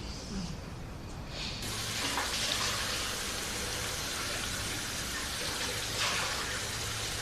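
Water tap turned on and running steadily into a sink, starting about one and a half seconds in.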